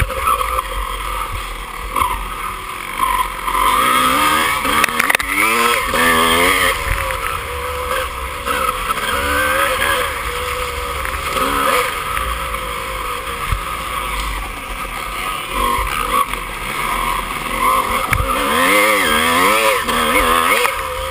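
Dirt bike engine heard from a camera mounted on the bike, revving up and down repeatedly as the rider works the throttle over a rough, muddy off-road course.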